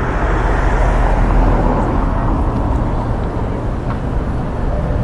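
Road traffic: a vehicle passing, its tyre and engine noise swelling about a second in and then easing off, over a steady low rumble.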